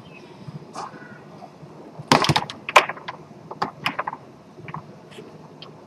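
Foosball play on a Tornado table: sharp clacks of the ball being struck by the plastic men and knocking against the table, with a quick flurry about two seconds in and more scattered knocks after.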